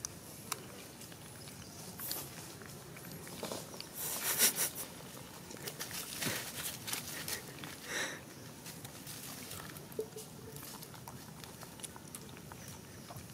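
Baby macaque sucking milk from a bottle teat: irregular wet sucking and slurping noises, loudest in a cluster about four to five seconds in.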